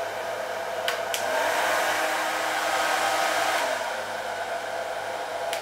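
Electric hair dryer running with a steady blowing hiss and a faint motor hum. Two clicks come about a second in, after which it runs louder for a few seconds, then drops back and cuts off abruptly at the end.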